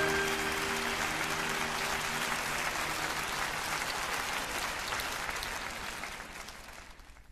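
Concert audience applauding, with the last held notes of the band dying away under it in the first two seconds or so. The applause fades out near the end.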